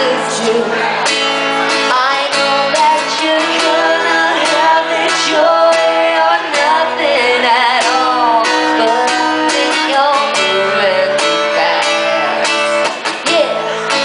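Acoustic guitar strummed, accompanying singing voices in a live performance of a song.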